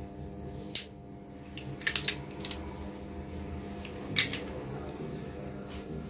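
Sharp clicks and snaps from handling a fibre-optic cleaver and the clamps of a fusion splicer: about six clicks at uneven intervals, the loudest about four seconds in, over a steady low hum.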